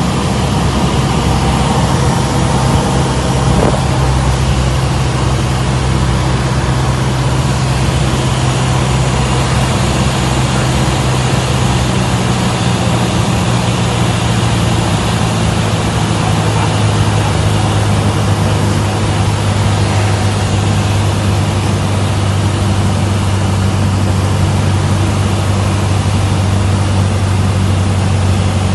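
Cessna 172's four-cylinder piston engine and propeller droning steadily at reduced approach power, heard inside the cabin under a constant rush of air.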